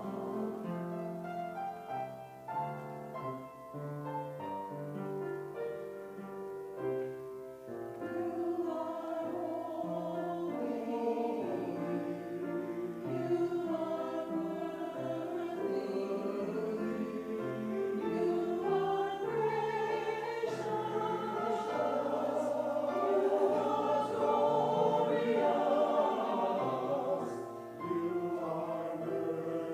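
Church choir singing with accompaniment. It grows louder about a third of the way in and dips briefly near the end.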